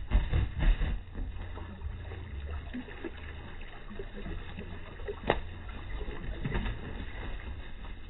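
Rock pigeons bathing in a stone water basin, splashing water and beating their wet wings, with a heavy burst of wing flapping in the first second and smaller splashes after. A sharp tap about five seconds in.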